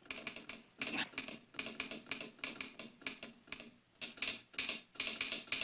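Telegraph sounder clicking out Morse code: rapid, irregular runs of sharp clicks broken by short pauses.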